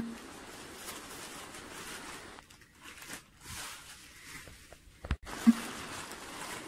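Bubble wrap and a zip-lock plastic bag rustling and crinkling as they are handled and pulled open, with sharp knocks at the start and again about five seconds in.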